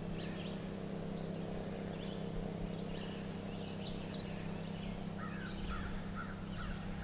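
Outdoor ambience of songbirds calling from the woods: scattered chirps, a quick cluster of high notes about halfway through and a run of four or five short chirps near the end, over a steady low hum.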